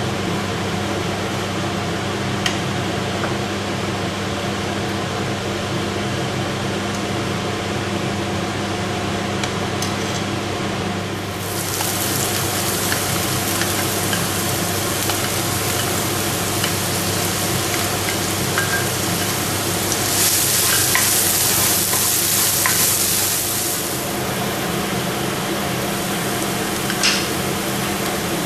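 Food frying in olive oil in a pan, a steady sizzle over a low hum. The sizzle gets louder and brighter about a third of the way in, and louder still for a few seconds past the middle, with a few light clicks.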